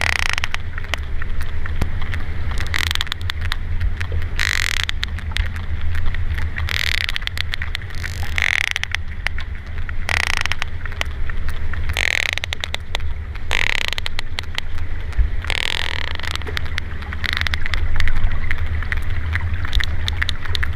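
Sperm whale clicks heard underwater: many sharp clicks in irregular series, over a steady low hum, with a wash of water noise every couple of seconds.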